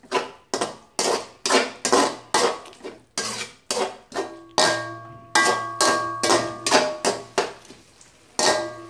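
Metal spatula clanking and scraping against a hammered aluminium kadai while stirring thick tomato masala, about two strokes a second, the pot ringing briefly after some strokes.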